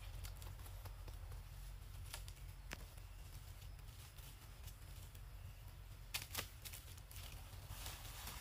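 Faint rustling and crackling of dry leaf litter under macaques moving across it, with a few sharp snaps about two seconds in and a louder pair a little after six seconds, over a low steady rumble.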